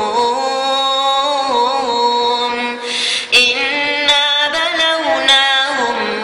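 Melodic Quran recitation by a solo voice, holding long, ornamented notes, with a short break about three seconds in before the line resumes.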